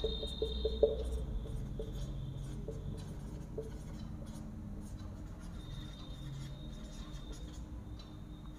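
Marker pen writing on a whiteboard: short strokes and taps as letters are drawn, with thin high squeaks of the felt tip on the board near the start and again in the second half.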